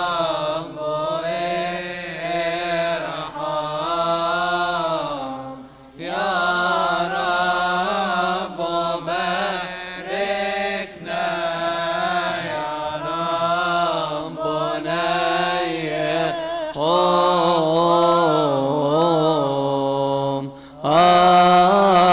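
Coptic Orthodox liturgical chant: voices singing a slow, ornamented hymn line unaccompanied, the pitch winding up and down over long held syllables, with a brief breath pause about six seconds in. The singing comes in louder about a second before the end.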